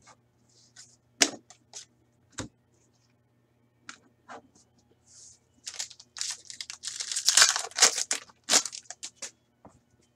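Hockey card pack wrapper being torn open and crinkled by hand. Scattered short clicks and rustles come first, then the loudest tearing and crinkling from about six to eight and a half seconds in.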